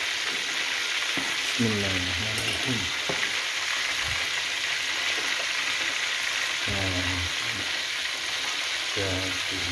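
Fish in coconut-milk chilli gravy sizzling steadily in an aluminium wok, simmered until the coconut milk splits and releases its oil. A metal spatula knocks against the wok a few times as the fish is turned.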